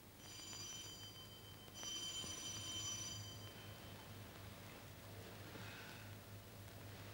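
An electric bell rings twice: a short ring, then after a brief pause a longer ring of about a second and a half.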